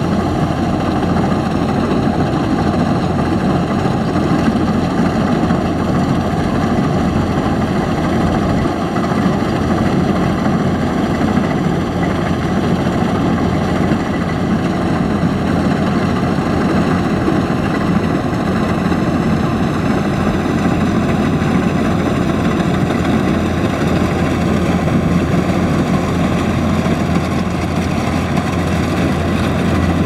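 Kubota DC-105X combine harvester running steadily while cutting rice, its diesel engine and threshing machinery giving a loud, even drone.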